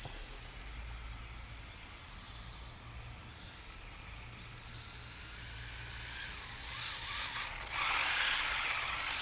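Wltoys A232 1/24-scale RC short course truck driving on dirt: small electric motor whine with tyres hissing over the ground. It grows louder and is loudest over the last second or so, as the truck comes close.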